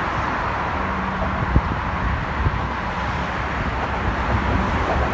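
Steady road traffic noise with wind on the microphone, with a short low hum about a second in and a couple of brief knocks.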